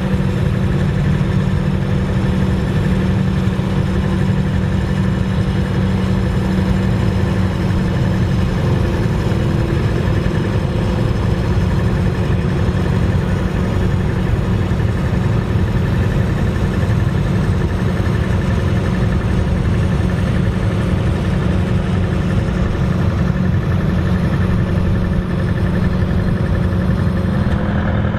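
Vintage farm tractor engines running steadily at low speed, a continuous even drone.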